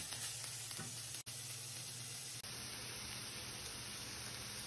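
Diced carrots, peas and onions sizzling steadily in oil in a kadai as they are stirred with a spatula, the sound dropping out for an instant about a second in.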